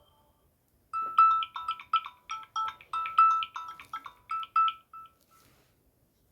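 Samsung Galaxy A16 ringtone: a short melody of quick, sharply struck notes that starts about a second in and fades out about four seconds later.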